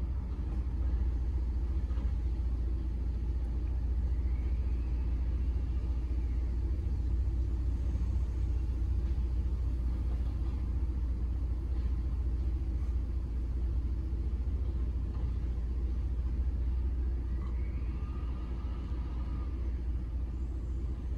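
Steady low engine rumble, with a faint whine that rises and falls twice: about four seconds in and again near the end.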